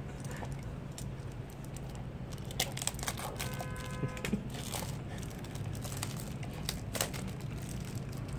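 Plastic wrap crinkling and a cardboard blind box being handled, with scattered small clicks and taps.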